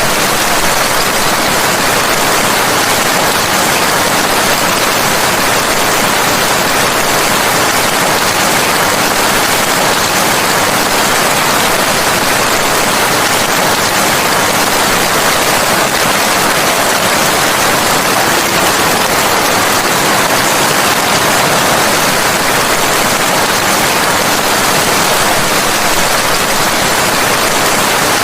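Steady rainfall: an even, unbroken hiss.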